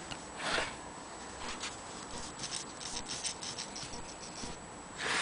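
Antique Willcox & Gibbs chain-stitch sewing machine's mechanism giving a run of light, uneven ticks as its handwheel is turned by hand, with a soft swish about half a second in and another near the end.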